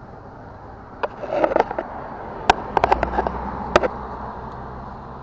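A cluster of sharp clicks and rattles from about a second in to about four seconds in, over a steady rushing noise.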